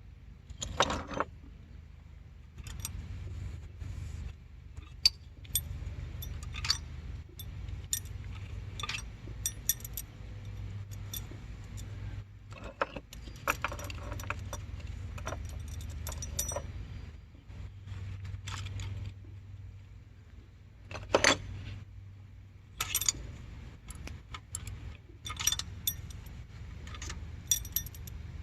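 Loose steel engine parts, most likely the removed push rods, clinking and rattling against each other as they are handled and set down. The sharp clinks come irregularly throughout, a few louder than the rest, over a steady low hum.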